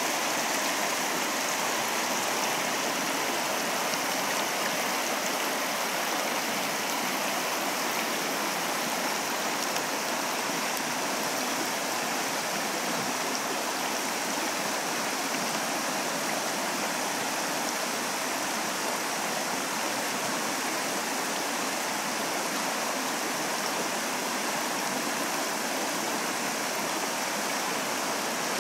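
A small rocky river rushing steadily over riffles and small rapids.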